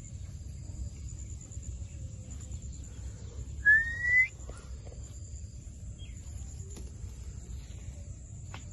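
A parrot gives one short, loud, rising whistle call about four seconds in. Under it run a steady low background rumble and a faint, steady high-pitched whine.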